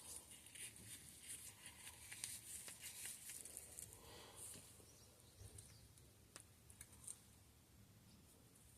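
Faint scattered clicks and light scraping of a mountain-bike rear shock's damper parts being handled and worked apart by hand. It is busiest in the first half, with a couple of sharper clicks later on.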